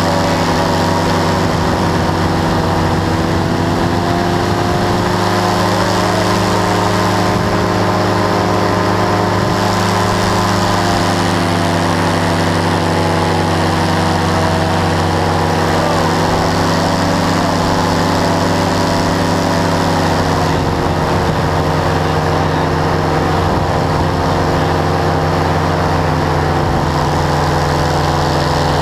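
Powered parachute's engine and propeller running steadily in flight, its pitch drifting slightly up and down.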